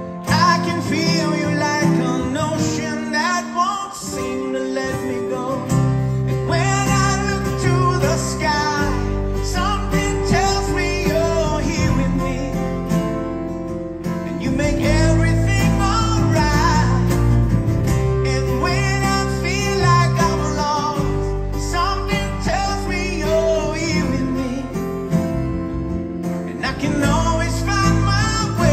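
Live rock band playing: a male lead vocal sung over strummed acoustic guitars, with electric bass coming in about six seconds in.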